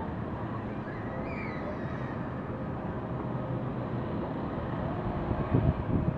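Outdoor city ambience: a steady hum of distant traffic, with a few low thumps near the end.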